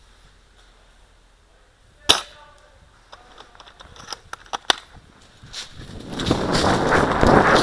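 Airsoft gun shots: one loud sharp pop about two seconds in, then a scatter of lighter pops and clicks. From about six seconds a loud rushing noise takes over.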